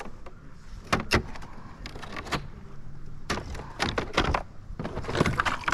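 Irregular knocks and thumps on a plastic Pelican kayak's deck and hull as a freshly landed smallmouth bass flops and is handled on board.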